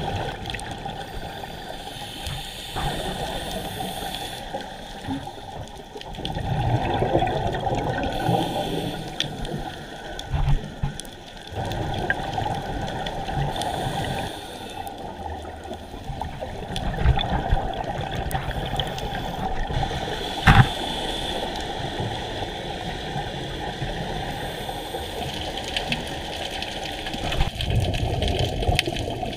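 Scuba diver's exhaled bubbles gurgling underwater, swelling in bursts every few seconds, with a couple of sharp knocks, the loudest about two-thirds of the way through.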